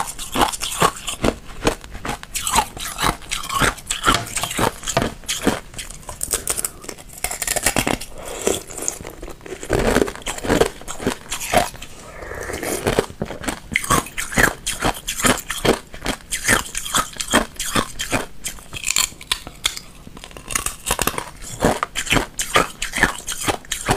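Thin hollow shells of ice bitten and chewed close to a clip-on microphone: rapid, sharp crunching and crackling as the brittle ice breaks between the teeth, with a brief lull about halfway.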